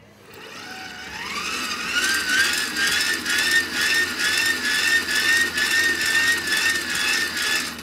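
Hand-cranked Megger insulation tester's generator being cranked up to put test voltage across an old capacitor. It whines, rising in pitch over about the first two seconds as it spins up, then holds steady with a slight regular wobble.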